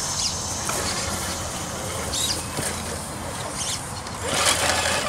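Electric RC rock crawler grinding slowly up over rocks: its motor and gears run under load while the tyres scrabble on stone, with a louder scrabble about four seconds in. A few short high squeaks cut through.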